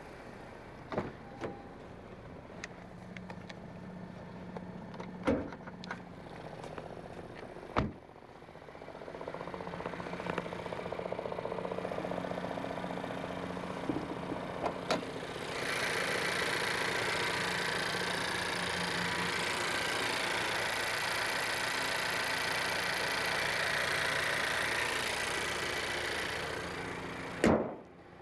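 2021 Honda Civic Sport hatchback's 1.5-litre turbocharged four-cylinder idling, with scattered clicks and knocks. About halfway through a steady hiss comes in, lasts some ten seconds and fades. Near the end comes a thump as hands are laid on the hood.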